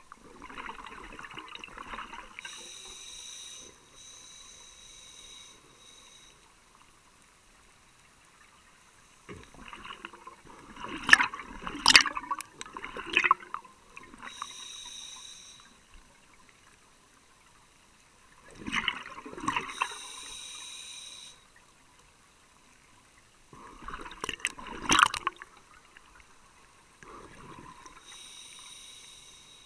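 A scuba diver breathing through a regulator underwater: three loud bursts of exhaled bubbles, each followed by a hissing inhale through the regulator.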